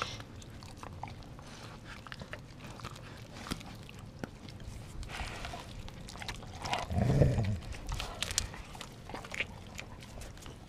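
Dogs chewing and tearing at a raw whole chicken right at the microphone: wet crunching and snapping bites as bone and meat give way, with a louder, deeper sound about seven seconds in.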